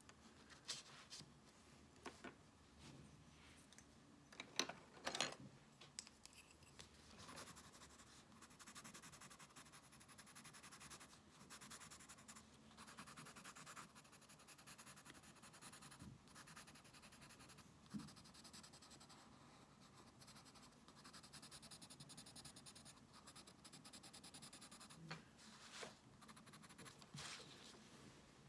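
Faint scratching of a coloured pencil shading on sketchbook paper, in stretches of quick strokes. A few light knocks come in the first several seconds, the loudest about five seconds in.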